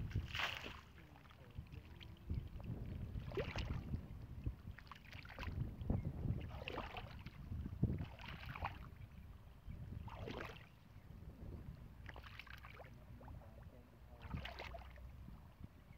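Repeated water splashes, one every second or two, over a low wind rumble on the microphone.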